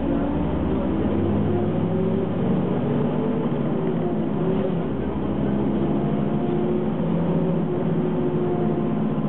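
Ikarus 280 city bus's six-cylinder diesel engine running while the bus drives, heard from on board; the engine note shifts up and down as it changes speed.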